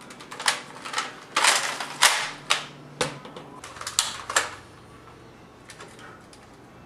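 Shots in a Nerf blaster battle: an irregular volley of about nine sharp shots over the first four and a half seconds, one of them a longer burst, then only faint background.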